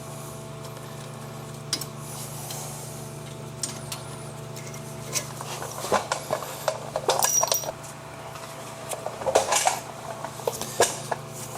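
Metal clinks and knocks of hand tools and brake parts being handled during a brake pad change, mostly scattered through the second half, over a steady low hum.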